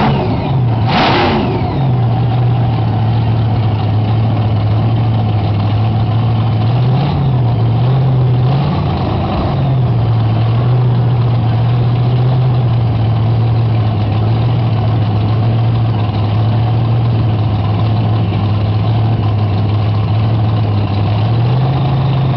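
JCB backhoe dragster's engine idling steadily with a few short revs, near seven seconds in, between eight and nine seconds, and again near the end. There is a short loud burst about a second in.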